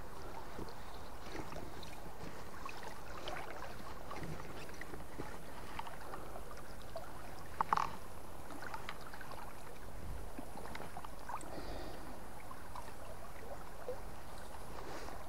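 River water running and gurgling steadily, with a few faint clicks and one short louder sound about halfway through.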